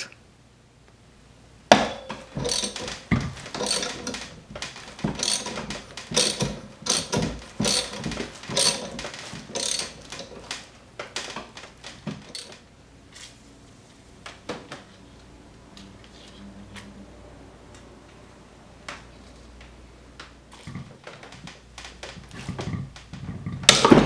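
Ratchet wrench clicking in quick runs as it turns the forcing screw of a three-jaw gear puller against a rusted blower-motor V-belt pulley, busy for the first several seconds and sparser after about ten seconds. A loud crack comes near the end.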